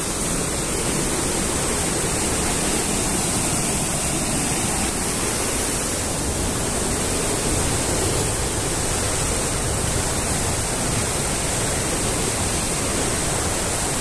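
Steady rushing of falling water, an unbroken hiss with a low rumble beneath it.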